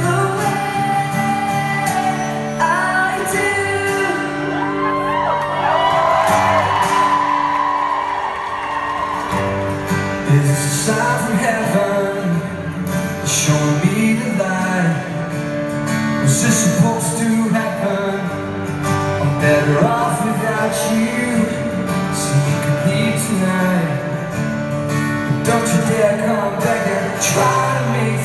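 Live acoustic pop song: guitar with a male lead vocal, echoing in a large arena.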